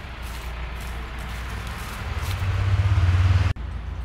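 Outdoor background rumble with a steady low hum. It grows louder about two seconds in and is cut off abruptly about three and a half seconds in, where the footage is edited.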